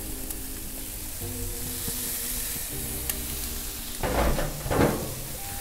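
Raw chicken thighs sizzling on the grate of a gas grill on high heat, with soft background music. Two brief louder noises come about four seconds in.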